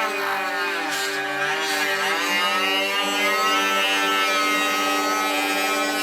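Dremel rotary tool whining at high speed, its pitch dipping and recovering in the first couple of seconds as it bites into the printer's plastic casing, then running fairly steady.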